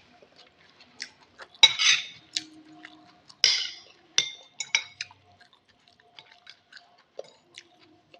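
Eating utensils clinking and scraping against a bowl of instant noodle soup, with chewing between: a handful of short clinks, the loudest about two and three and a half seconds in.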